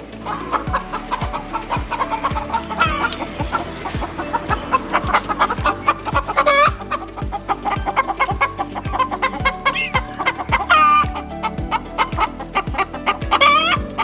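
Chickens clucking, with several loud calls standing out. Under them runs background music with a steady low beat about twice a second.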